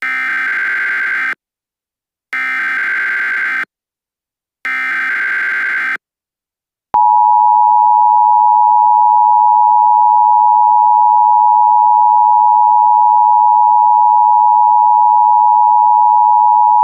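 Emergency Alert System signal: three short buzzy data bursts of the SAME header, each about a second and a quarter long with a second's gap between them. About a second after the third burst comes the steady two-tone EAS attention signal, held for about ten seconds, which marks the start of a new alert message.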